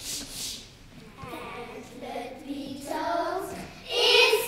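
A group of young children singing together, starting soft and growing louder toward the end. A couple of soft, rhythmic hissing sounds come at the very start.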